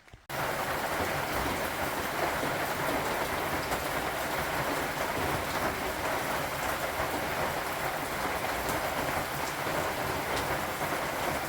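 Steady rain falling, a dense even hiss with scattered drop ticks, coming in abruptly just after the start.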